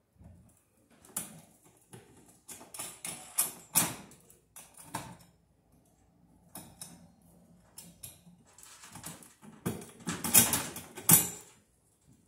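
Metal-armoured MC (BX) cable and a junction box being handled and worked apart: irregular clicks and metallic rattling, with a longer, louder rattle of the armour near the end as the cable comes free and is pulled.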